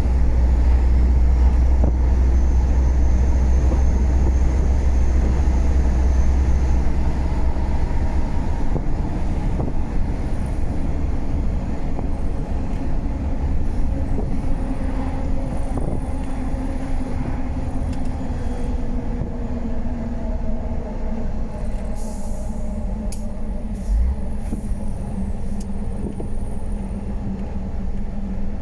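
MAN F90 26.422 truck's 12-litre inline-six turbo diesel running under way, with a deep rumble for the first several seconds; in the second half the engine note slowly falls as the truck slows. A few short hisses and a single thump come near the end.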